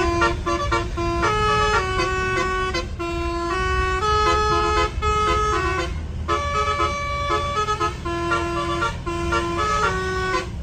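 A bus's 'telolet' musical air horn playing a melody of short and held stepped notes, with a brief break about six seconds in, over the low rumble of a bus engine.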